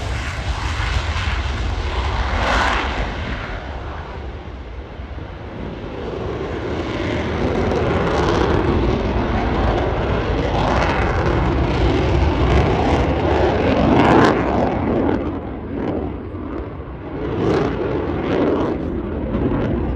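Eurofighter Typhoon jet fighter taking off on afterburner and climbing away: a loud, continuous jet rush whose level rises and falls as the aircraft turns and manoeuvres.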